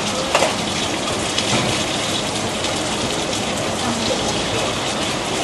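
Hot oil sizzling steadily as scallion pancakes deep-fry in a large pan, with a brief clack about half a second in.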